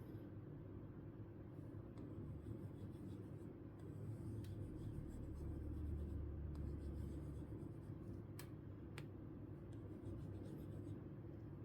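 Stylus pen tip moving across a tablet screen, a faint scratchy rubbing over a low background hum, with a couple of sharp taps late on.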